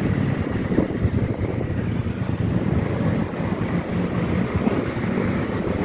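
Wind rushing over the microphone of a moving motorcycle, with its engine running steadily underneath.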